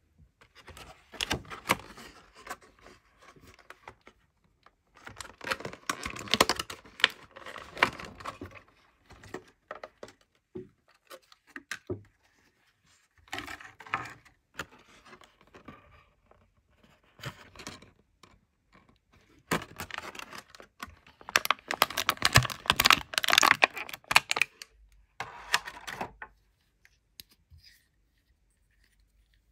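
Clear plastic blister packaging handled and crinkled, in bursts of crackling and clicking with short pauses, the longest and loudest near the end before it goes quiet.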